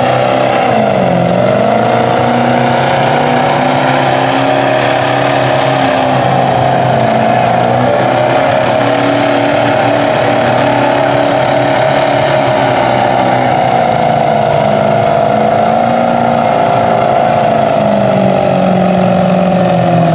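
Lifted diesel mud truck's engine held at high revs as it churns through a water-filled mud pit, its pitch wavering up and down with the throttle.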